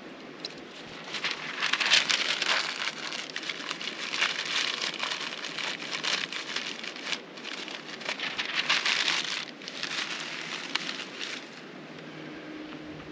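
Dry crinkling and crackling in irregular bursts as dry tinder is crumpled and packed into a stone fire ring, starting about a second in and dying away near the end.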